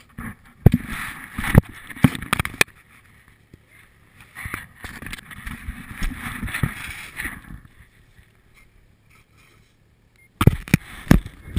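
Handling noise from an action camera being moved about close to clothing: sharp knocks on its housing in the first three seconds and again near the end, with a few seconds of rustling and scraping in between.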